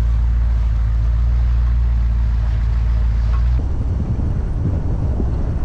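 Jeep Grand Cherokee driving: a steady low engine drone, which changes abruptly about three and a half seconds in to a rougher, uneven rumble of tyres on a dirt road with wind buffeting the microphone.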